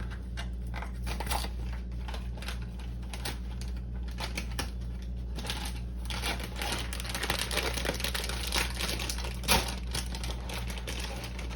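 Granola package being handled: plastic crinkling and a run of small clicks from the granola pieces, busier in the second half, with one sharper click near the end. A steady low hum runs underneath.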